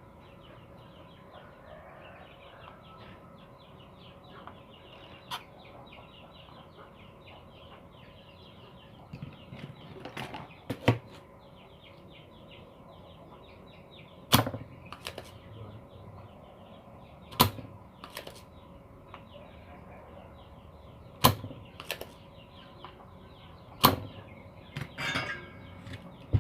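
Sharp clicks every few seconds, often in pairs, from hand tools at a workbench while a shorted zener diode is taken off an amplifier circuit board. Birds chirp faintly throughout.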